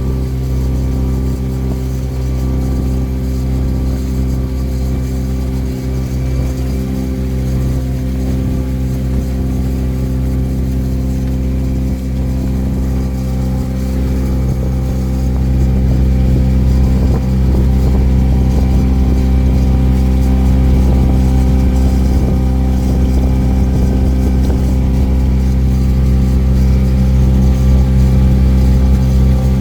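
A cruise boat's engine running steadily with a low, even drone. It grows a little louder about halfway through.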